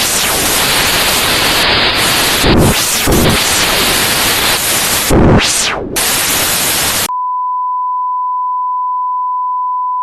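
Loud television static hiss with a few brief swells and a quick falling sweep, cutting off abruptly about seven seconds in to a single steady test tone: the broadcast signal has been lost.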